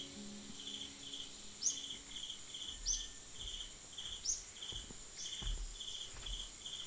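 Insect chorus: a steady high buzz with a pulsing chirp repeating about twice a second, and a few short rising chirps over it.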